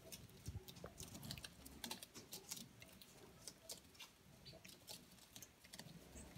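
Gouldian finches pecking and husking seed from a millet spray on newspaper: many quick, irregular small clicks of beaks on seed and paper.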